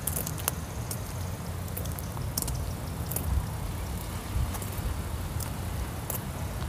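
Wind buffeting the microphone as an uneven low rumble, with a few scattered light clicks.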